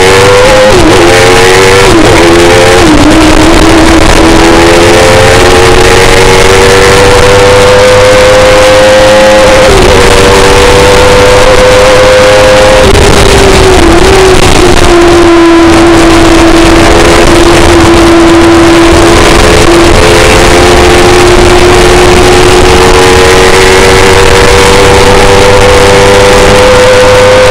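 Kawasaki ZX-10R inline-four motorcycle engine in a BDN S3 sports racing car running hard, heard from the cockpit over loud wind and road noise. Revs climb through quick upshifts at first, hold high, drop about halfway in as the car brakes, then climb again near the end.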